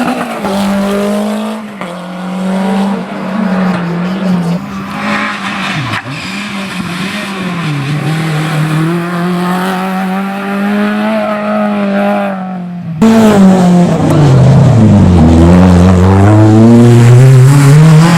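Historic rally car engines running hard at high revs, the note held with brief lifts. About 13 seconds in there is an abrupt cut to a louder, closer car whose engine note drops, then climbs back up as it accelerates away.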